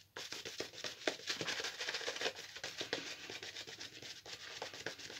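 Synthetic shaving brush swirling soap lather over the face: a continuous run of quick, bristly rubbing strokes.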